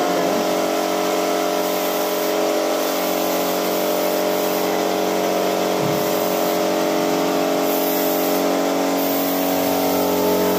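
Small portable air compressor running steadily, with the hiss of a paint spray gun spraying melamine wood polish.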